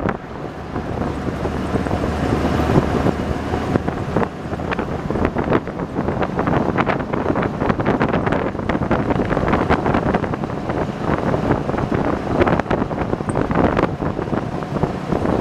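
An open-sided amphibious duck boat driving on a road: its engine and the road noise run steadily under wind buffeting the microphone in irregular gusts.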